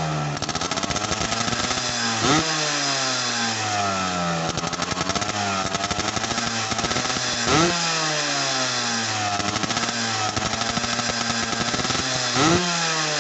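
Modenas Dinamik two-stroke motorcycle engine through a modified stage 2 exhaust, blipped three times about five seconds apart, the pitch jumping sharply each time and falling slowly back. The owner says the fuel setting is still too lean, running dry even at half throttle.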